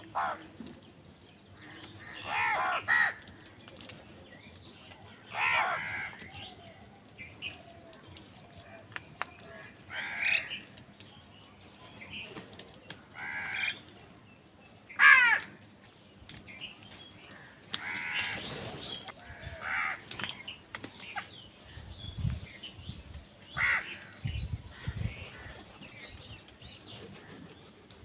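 House crows cawing: harsh caws from several birds every few seconds, the loudest about fifteen seconds in. A few low thuds come near the end.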